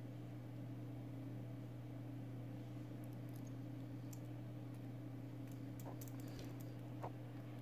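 Faint clicks and taps of a stainless-steel Casio G-Shock GST-B100 watch and its metal link bracelet being handled and turned in the fingers. The clicks start about three seconds in, with one sharper click near the end, over a steady low hum.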